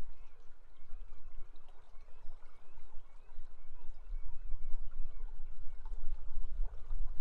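River water rushing steadily over a strong low rumble.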